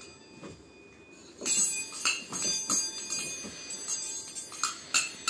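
Metal spoon clinking and scraping in a small stainless-steel bowl, an irregular run of bright metallic clinks starting about a second and a half in.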